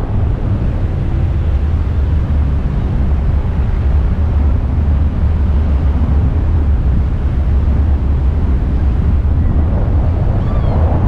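Wind buffeting the microphone of a selfie-stick camera in the airflow of a paraglider in flight: a loud, steady low rumble.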